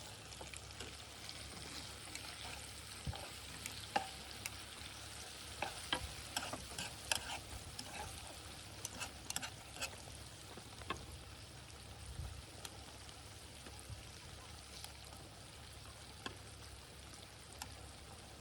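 Food sizzling steadily in a pan, with scattered sharp clicks and taps throughout.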